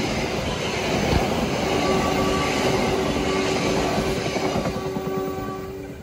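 Passenger coaches rolling past with the rumble and clatter of wheels on rails, fading as the train pulls away. About two seconds in, the General Electric diesel locomotive's horn sounds one long steady chord, held for about four seconds until just before the end.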